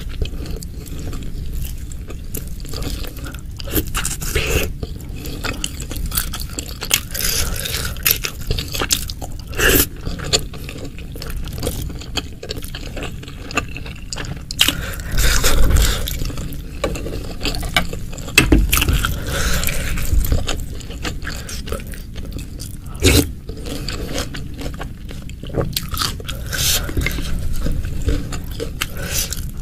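Close-miked eating of meatballs in spicy broth: irregular wet chewing and biting sounds, with some scraping.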